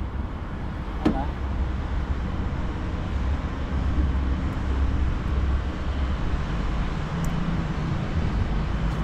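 Steady low rumble of motor noise with a faint hum, and a single short click about a second in.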